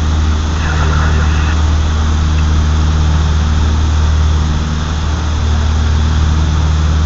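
Steady drone of an aircraft's engines heard from inside the passenger cabin: a constant low hum of several even tones over a rushing hiss.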